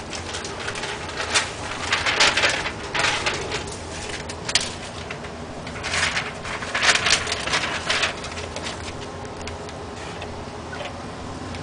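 Newborn Siberian Husky puppies squeaking and whimpering in clusters over the first eight seconds or so, then going quieter.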